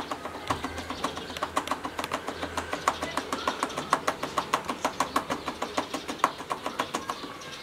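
Quick, even plastic tapping, about six light knocks a second: a toner bottle shaken with its nozzle in the fill hole of a Canon 303 toner cartridge, knocking toner powder into the hopper.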